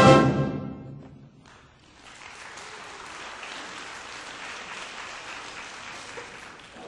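A high school concert band's final held chord cuts off and rings away over about a second. After a brief lull, steady, fainter audience applause follows.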